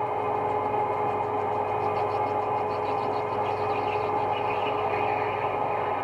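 Metal lathe running with a steady hum as its tool turns down a brass bar, taking off a little more material to clean up a flaw in the blank. A fainter, higher cutting sound comes in about two seconds in and fades near the end.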